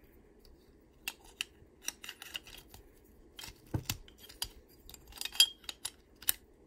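Metal chest armor being pressed and fitted onto a plastic Minecraft Steve action figure: a run of sharp clicks and short scrapes, the loudest about five and a half seconds in, as the piece goes on snug.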